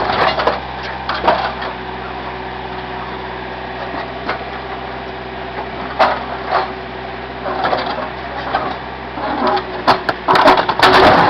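Backhoe engine running steadily while the machine works over a scrapped van, with scattered metal clanks and crunches that become dense and loud near the end.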